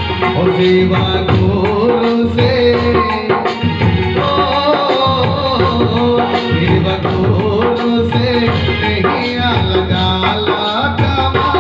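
Folk devotional bhajan music: a Roland XPS-10 electronic keyboard playing the melody over a dholak's steady hand-drummed rhythm.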